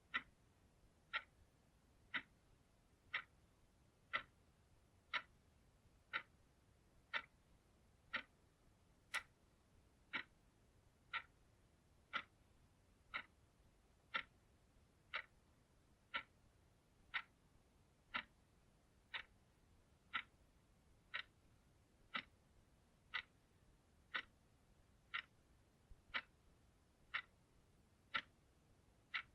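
Clock ticking steadily, one sharp tick about every second, each tick much like the last.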